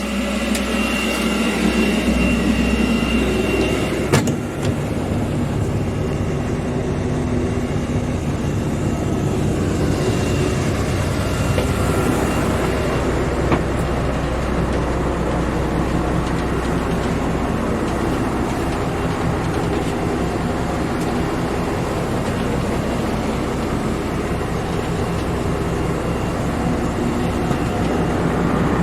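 Boat engine running steadily, with a sharp knock about four seconds in.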